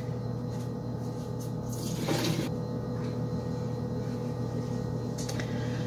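A steady low electrical hum, with a short swish of hot water in a bowl about two seconds in and a brief rustle of a towel near the end.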